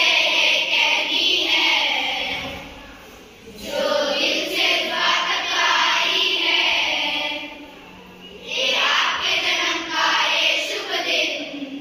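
A group of schoolchildren singing together as a choir, in three long phrases with short pauses between them.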